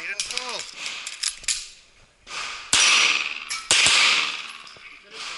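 Two shots from a CZ 85 9mm pistol about a second apart, each followed by a short reverberant tail. Softer clicks and knocks come in the first second and a half.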